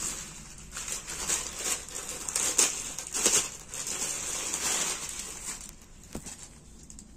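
Clear plastic packet crinkling and rustling in irregular bursts as a folded dupatta is pulled out of it and handled, dying down about six seconds in.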